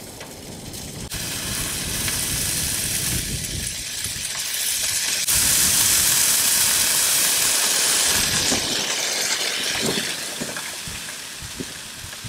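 Raw bacon sizzling on a hot griddle plate as the strips are laid down: a loud, steady hiss that jumps up sharply about five seconds in and eases off after about eight seconds, with a few light knocks near the end.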